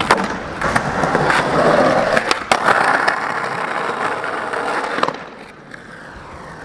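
Skateboard on concrete: a few sharp clacks of the board popping and landing, then a long scraping grind of the Tensor Mag Light trucks along a concrete curb, ending with a clack about five seconds in and followed by quieter wheel rolling.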